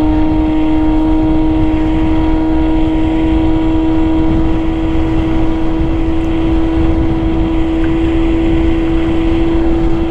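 Ola S1 Pro electric scooter cruising at a steady top speed of about 80 km/h in Normal mode: one steady, unchanging hum from its drive, over heavy wind rumble on the microphone.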